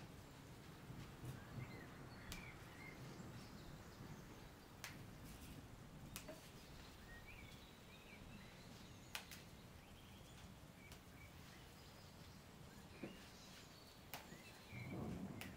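Near silence: faint background hiss with a few scattered soft clicks and some faint, short, high chirps.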